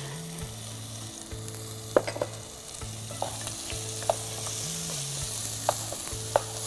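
Koi fish curry masala sizzling in a pot while a wooden spatula stirs it, with a few sharp taps of the spatula against the pot.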